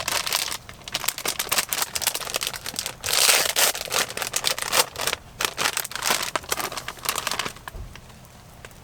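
Plastic wrapper of a pack of spicy rice crackers (senbei) crinkling and rustling as it is handled and opened, in irregular crackly bursts that are busiest a few seconds in and die down near the end.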